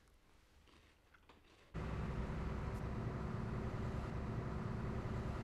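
Near silence at first, then, about two seconds in, a sudden cut to the steady engine and road noise heard from inside a moving double-decker bus.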